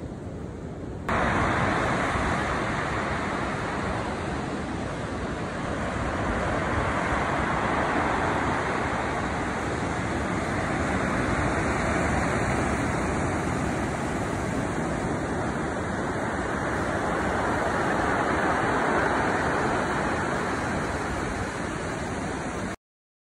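Ocean surf breaking on a beach below, a steady rushing noise that swells and eases slowly. It starts suddenly about a second in and cuts off abruptly near the end.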